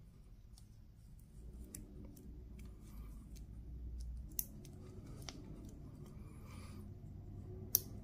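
Small metal clicks of a butterfly deployment clasp being worked shut on a silicone rubber watch strap, over soft handling rustle. The two sharpest clicks come about four and a half seconds in and near the end.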